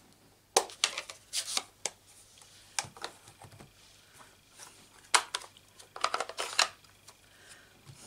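Plastic Stampin' Up Classic ink pads having their hinged lids flipped open and set down on the table: a string of sharp, uneven plastic clicks and clacks.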